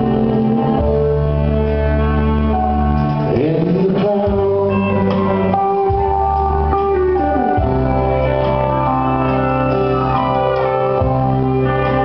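Live country band playing a song: a woman sings over acoustic guitar and sustained organ-like chords, with a few sliding notes.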